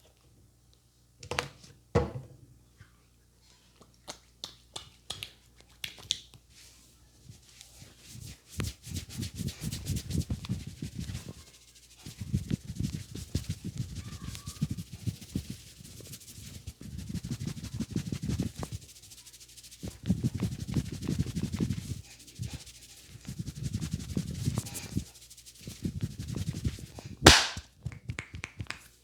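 Hands massaging a head vigorously: rapid rubbing and tapping strokes on the scalp and hair, coming in runs of a few seconds. There are a few sharp clicks near the start and one loud sharp crack near the end.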